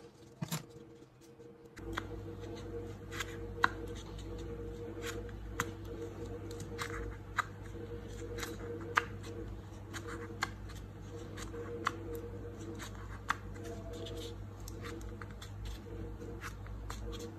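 Hands handling paper: soft, irregular clicks and rustles, roughly one a second, over a faint steady hum.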